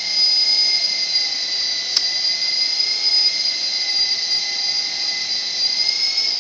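Steady high-pitched whine of a fast-spinning small motor, its pitch starting to fall as it winds down right at the end.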